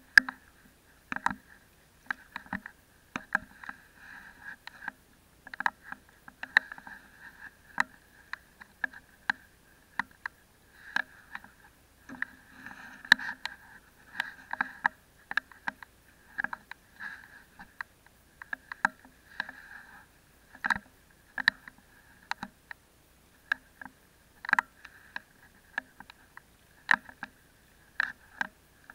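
Water lapping and splashing against a waterproof camera housing held at the sea surface, with irregular sharp clicks and short knocks.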